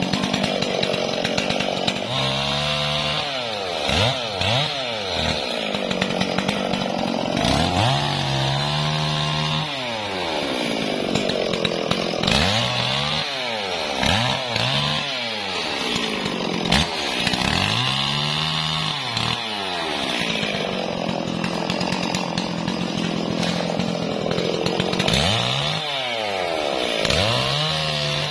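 Stihl MS440 two-stroke chainsaw limbing the leafy branches of a felled tree, its engine revving up and dropping back over and over, every couple of seconds, as the throttle is squeezed for each cut and released.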